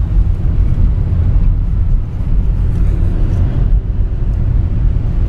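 Steady low rumble of a car driving along a road, heard from inside the cabin: engine and tyre noise, with no change in pace.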